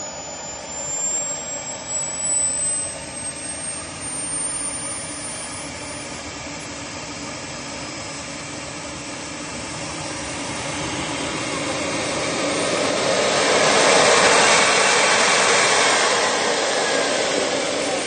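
Model jet turbine of a radio-controlled T-One Models jet running, a thin high whine climbing steadily over the first six seconds. The engine noise then swells to its loudest about fourteen seconds in and eases off again.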